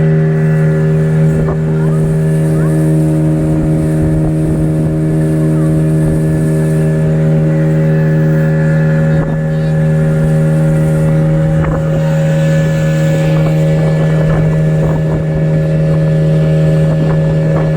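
Speedboat engine running at a steady speed, one unchanging drone, with a rush of noise and scattered brief knocks over it.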